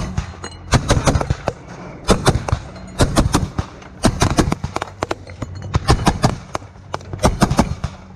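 Gunfire in short bursts, sharp cracks in quick strings of two to four coming about every second, over a steady low engine drone.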